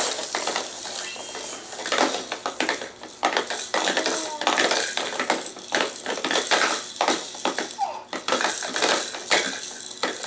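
Plastic toys on a Fisher-Price baby jumper's activity tray clicking and rattling irregularly as a baby handles them, with a few short baby vocal sounds.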